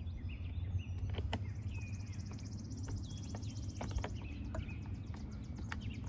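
Outdoor ambience: a steady low rumble with birds chirping and a fast, high-pitched trill starting about a second and a half in, plus a few faint clicks.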